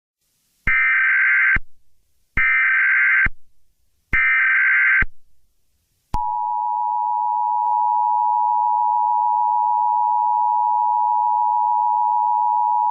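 Emergency Alert System broadcast tones: three short bursts of SAME header data tones about a second each, sent one after another. About six seconds in, the steady two-tone EAS attention signal starts and holds.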